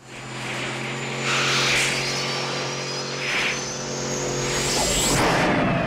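Film sound effects of the DeLorean time machine's time jump: a steady electric hum and high whine with crackling surges of sparks, building in loudness, ending in a sweeping rush near the end.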